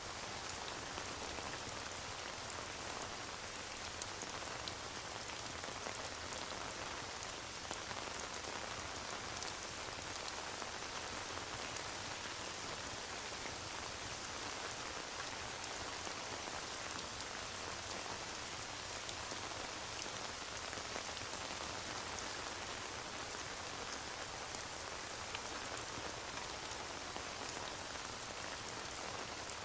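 Steady rain falling on a surface, an even patter that does not change, with scattered faint ticks through it.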